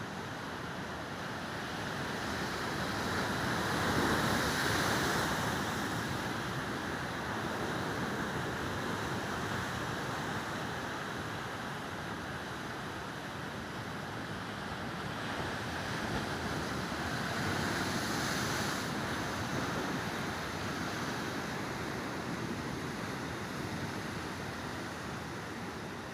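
Sea waves surging and washing in, a steady rush with two larger swells, one about four seconds in and another around eighteen seconds.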